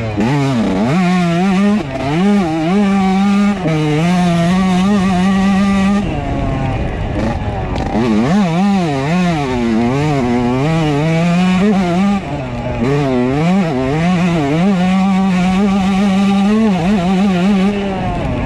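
2003 Yamaha YZ125's two-stroke single-cylinder engine being ridden hard, its pitch swooping up and down again and again as the throttle is opened and closed, with short stretches held at high revs. The revs drop away for a moment about six seconds in before climbing again.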